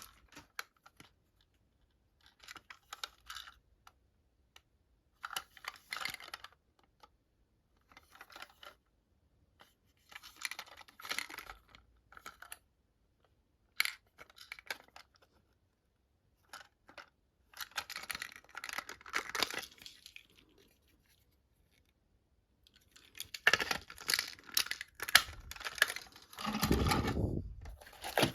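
Plastic packaging crinkling and rustling in short, irregular bursts while a toy train set is unpacked, with a few light clicks. Near the end the rustling gets louder and busier, with a dull thump.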